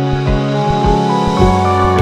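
Instrumental background music: layered, held notes over a low, regular beat.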